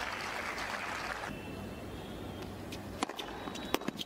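Tennis ball struck by rackets in a doubles rally on a hard court: a few sharp pops about three seconds in and again just before four seconds, heard through a television's speaker. A steady hiss runs underneath and cuts off suddenly a little over a second in.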